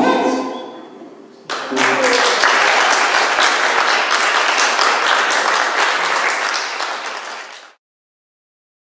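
Audience applauding, starting about a second and a half in as the last sung note dies away, and cutting off abruptly near the end.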